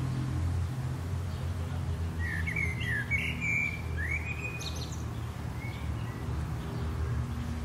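Rural garden ambience: a steady low rumble of distant road traffic under a songbird singing a short phrase of whistled, gliding notes from about two to four and a half seconds in, followed by a few fainter calls.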